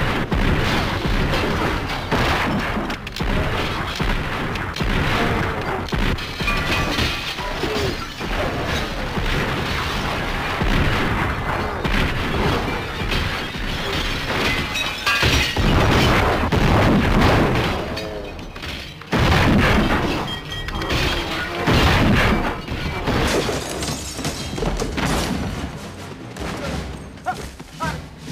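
Film gunfight sound mix: repeated revolver shots and heavy booming, crashing impacts over a music score.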